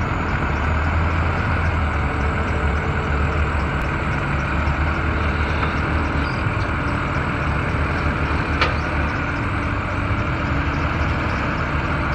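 Pickup truck engine running steadily as it pushes another pickup bumper to bumper; a steady low rumble, with one brief sharp click a little past the middle.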